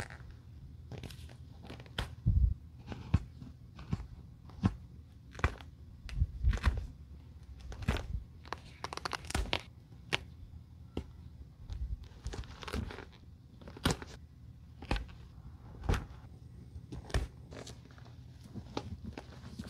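Seam ripper cutting the stitches of a leather handbag's fabric lining: a run of irregular sharp snaps as the threads part, with the lining fabric tearing as it is pulled loose.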